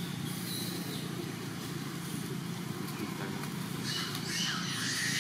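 A steady low hum underneath. About four seconds in come high, shrill squeals from long-tailed macaques tussling.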